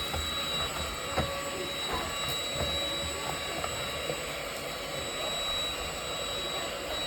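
INSE cordless stick vacuum cleaner running steadily: a constant high whine over an even hiss.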